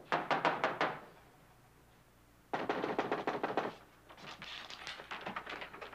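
Knocking on an apartment door: a quick run of about six knocks, then a longer burst of rapid pounding about two and a half seconds in. Fainter clicking and rattling follows near the end as the door's chain and lock are worked.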